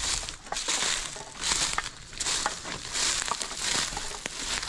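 Footsteps crunching through dry leaf litter on a forest floor, a crackling step roughly every three quarters of a second at a walking pace.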